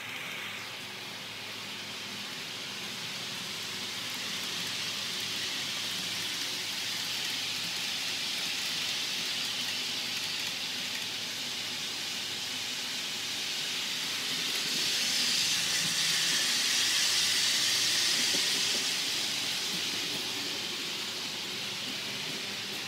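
HO-scale model double-deck trains running on the layout track: a steady rushing hiss of wheels and motors. It swells as a train draws near, loudest a little past the middle, then fades slightly.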